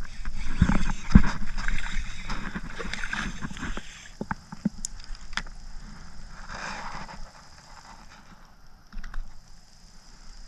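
Hooked bluegill splashing at the surface as it is reeled in and lifted from the water beside a kayak, mixed with knocks against the boat, then a few sharp clicks and a brief rustle as the fish is handled.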